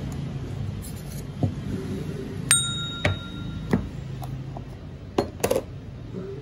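Ceramic bowl and utensils clinking on a cutting board: one sharp ringing clink about two and a half seconds in, then a few lighter knocks and taps, over a low steady hum.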